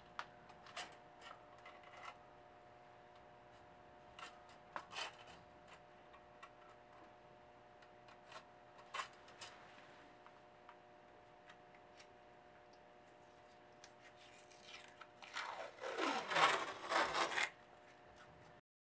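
Scattered light clicks and knocks of hand work, then near the end about two seconds of ripping as blue painter's tape is pulled off its roll, its pitch sweeping downward. A faint steady hum runs underneath.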